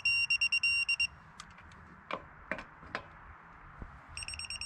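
Tapha Tools flex-head digital torque wrench beeping rapidly, about seven high beeps a second, as the lug nut reaches the set torque. The beeping stops about a second in, a few sharp clicks follow, and the rapid beeping starts again near the end as the set torque is reached once more.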